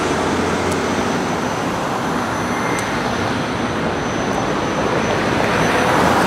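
Street traffic noise: a steady rush of road noise from vehicles on a city street, swelling slightly near the end.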